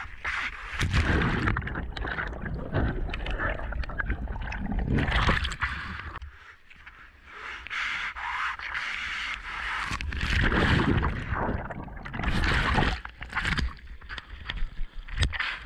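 Breaking surf and whitewater rushing and splashing close around a whitewater kayak as it is paddled through waves, with paddle strokes slapping the water. The noise comes in surges, easing briefly about six seconds in.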